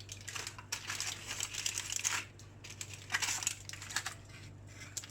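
Aluminium foil crinkling and rustling as a foil parcel of baked salmon is opened, with scattered small clicks; the crinkling is busiest in the first two seconds and comes back in short spurts later.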